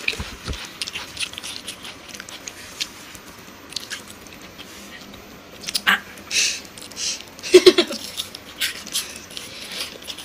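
Close-miked chewing and mouth sounds of people eating chocolate snacks: a run of short, irregular clicks and smacks, loudest around six to eight seconds in.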